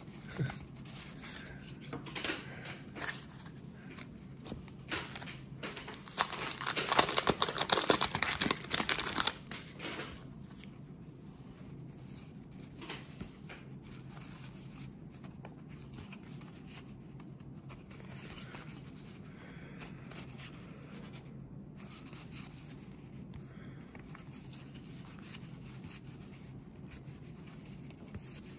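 Baseball cards being handled and flipped through by hand, with soft rustling and light clicks. From about six to nine seconds in comes a louder stretch of crinkling and tearing paper: a wax-pack wrapper being torn open.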